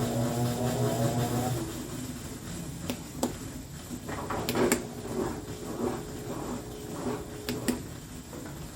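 A small electric motor hums and whines up in pitch for about a second and a half, then stops. Scattered clicks and knocks follow.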